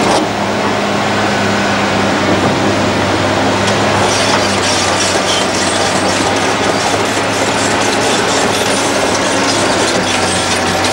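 Liebherr R962 Litronic crawler excavator's diesel engine running steadily as it works, with rapid metallic clanking and squealing from the machine's steel parts starting about four seconds in.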